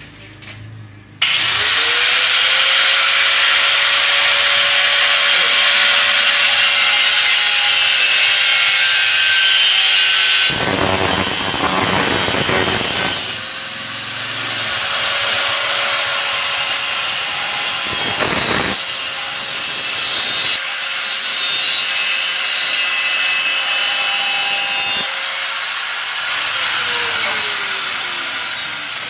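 Electric angle grinder switched on about a second in, spinning up and then working metal with a harsh, gritty hiss that gets heavier under load a couple of times, then spinning down near the end.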